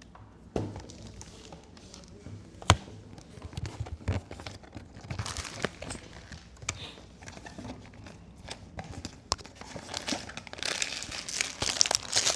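Blind-box packaging being handled and opened: scattered clicks and taps, then plastic wrapper crinkling and rustling that grows louder near the end.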